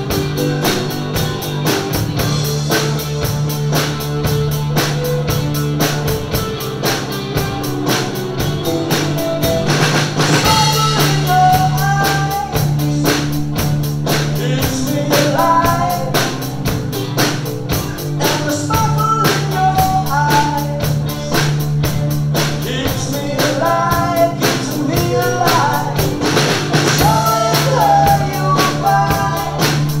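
Tamburo T5 drum kit played live in a steady rock beat, along with a recorded rock song with singing and guitar. The sung melody comes in about ten seconds in.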